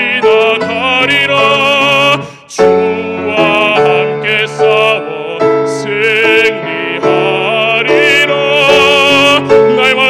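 Male baritone singing a Korean hymn in a full, operatic voice with wide vibrato over instrumental accompaniment. The music breaks off briefly between phrases about two and a half seconds in, then resumes.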